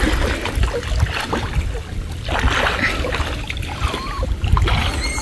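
Water sloshing and lapping around a person wading chest-deep, with a low rumble under it and stronger surges of splashing about halfway through and near the end.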